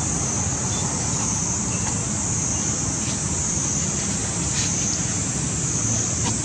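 Steady outdoor background noise: a low rumble under a high, wavering hiss, with a few faint clicks.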